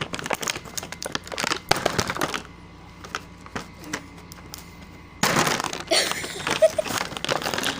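Plastic toy and packaging being handled: crackling, crinkling and clicking, with scattered clicks in the middle and a denser, louder stretch of crinkling from about five seconds in.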